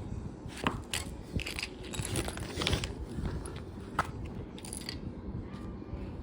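Lego bricks being handled: sharp plastic clicks and rattling, with a few distinct clicks among the rustle.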